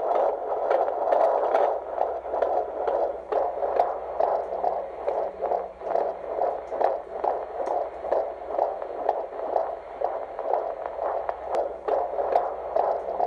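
Fetal heartbeat picked up by a handheld Doppler probe on a pregnant belly: a rapid, even, whooshing pulse at a little over two beats a second, with a faint hum underneath.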